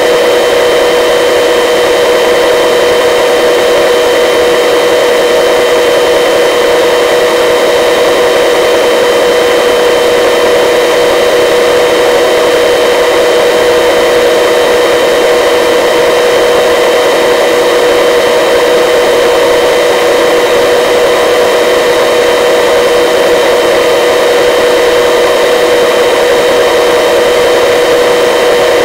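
Helicopter in flight, heard up close from outside the cabin: a loud, unchanging engine whine of several held tones over a steady rushing hiss.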